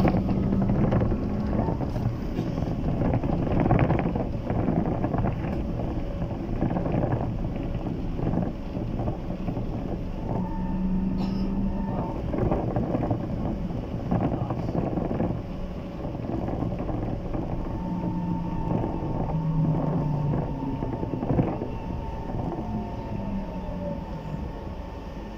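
Bogdan T901.10 trolleybus riding, heard from inside: its electric traction drive whines in thin tones that come and go, with one tone falling away near the end as it slows. Under the whine is a steady rumble of road noise, with scattered clicks and rattles.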